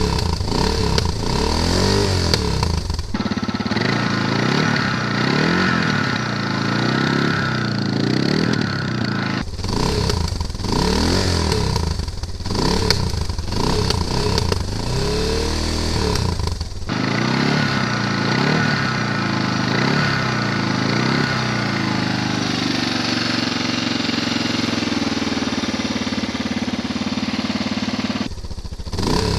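Suzuki DR650SE single-cylinder engine revved in repeated short throttle blips, the pitch climbing and falling back each time, then running at a steadier idle later on. The sound changes abruptly several times, as cuts between recordings through the Leo Vince Enduro X3 slip-on muffler and through the stock muffler.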